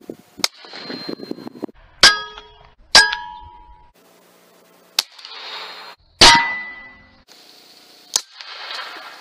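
A string of PCP air rifle shots cut one after another, each a sharp crack with a short ringing tail. The loudest comes about six seconds in.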